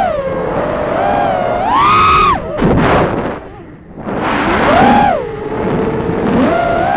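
Motors and propellers of a 6-inch FPV quadcopter whining, the pitch rising and falling as the throttle changes. About halfway through the whine drops away and goes rough, then climbs back.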